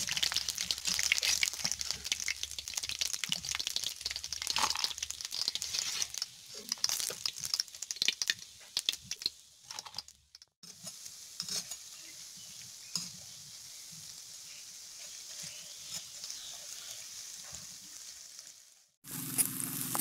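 Battered fritters sizzling in hot oil in a wok: a dense crackling sizzle that fades over the first few seconds. After a cut about halfway it gives way to a quieter, steady sizzle with a few light clicks, and a low hum starts just before the end.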